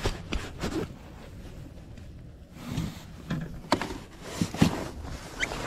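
Scattered knocks, taps and rustles of a largemouth bass being handled and lifted out of a landing net aboard a fishing kayak, over a low rumble of wind on the microphone.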